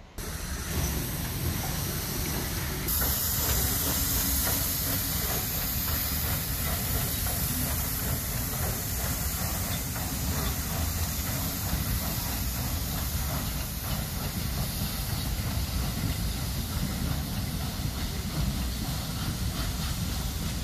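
Ol49 steam locomotive moving a passenger coach, with a loud, steady hiss of escaping steam that grows stronger about three seconds in.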